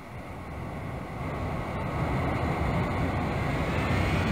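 Jet aircraft engine noise: a deep rumble growing louder over the first two seconds, then holding steady, with a faint engine whine coming in near the end.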